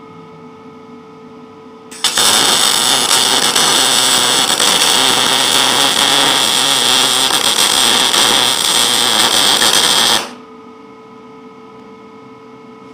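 MIG welding arc from a Lincoln 210 MP MIG gun running .035 wire with C25 shielding gas, set for quarter-inch material: a loud, steady crackle that starts about two seconds in and stops after about eight seconds as the bead is laid.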